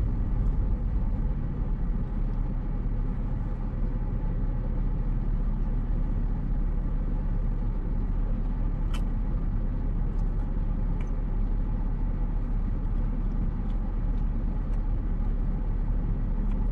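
Inside a car's cabin: a steady low rumble of the engine and road, with a single sharp click about halfway through.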